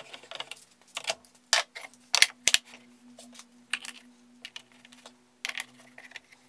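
Scattered sharp clicks and taps of a screwdriver and small screws as a film-faced plywood insert is screwed into a router table fence, about a dozen in all, the loudest two a couple of seconds in. A faint steady hum runs underneath from about two seconds in.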